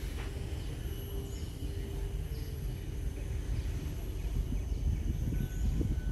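Wind rumbling on the microphone, a steady low buffeting, with faint steady tones above it.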